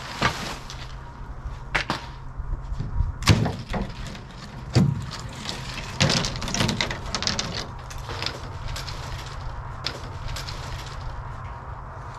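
Irregular knocks and clatter of plywood and boards from a wooden shipping crate being taken apart and its lid lifted off, over a steady low hum.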